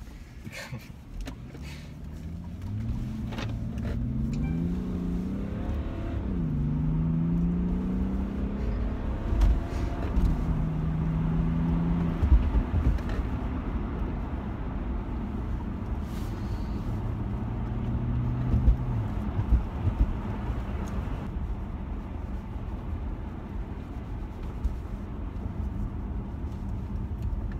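BMW 7 Series (F01) accelerating through the gears, heard from inside the cabin: the engine note climbs and drops back at each upshift, then settles to a steadier, lower note at cruise over a low road rumble, with a few thumps from bumps.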